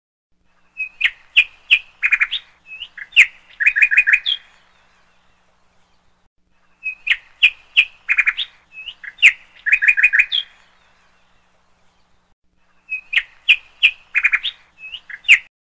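A bird singing: the same quick phrase of high chirps and short trills, about three and a half seconds long, repeated three times with pauses between.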